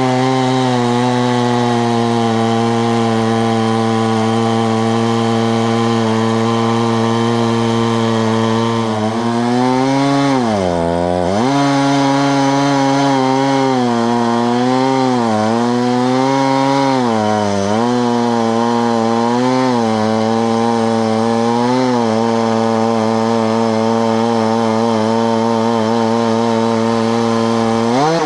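Husqvarna 372XP two-stroke chainsaw running flat out in a homemade chainsaw mill, ripping along a pine log. Its pitch sags several times as the chain loads up in the cut, most deeply about ten seconds in, and rises briefly near the end.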